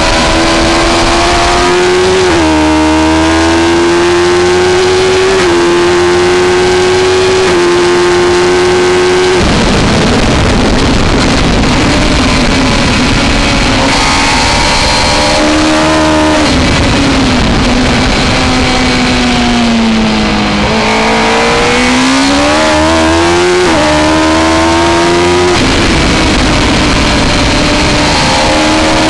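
Onboard sound of a Suzuki GSX-R1000 K3's inline-four engine at racing speed. The revs climb with several brief dips at gear changes, ease off into a corner with the pitch falling, then climb again. Loud wind rush over the microphone runs throughout and is strongest while the engine is off the throttle.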